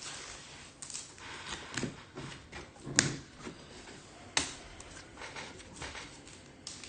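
Topps Chrome trading cards being handled and sorted: light rustling and scattered clicks and taps, with a sharper click about three seconds in and another about a second and a half later.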